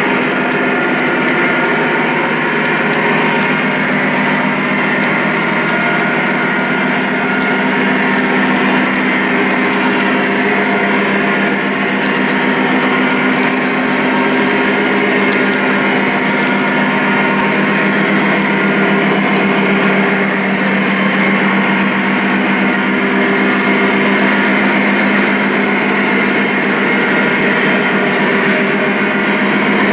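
Lionel O-gauge freight train running steadily: the onboard diesel engine sound of the Legacy Union Pacific ES44 locomotives drones at a steady pitch over the rumble of the cars' metal wheels on the track.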